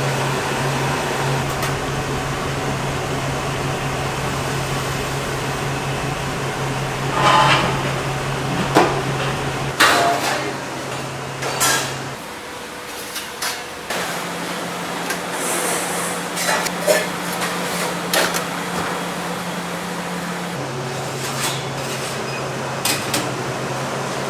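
Metal utensils and pans clanking and knocking at irregular moments over a steady machine hum whose pitch steps up and down a few times.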